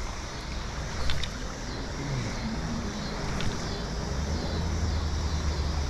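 Steady rush of flowing river current, with a low rumble that builds about four seconds in and a single click about a second in.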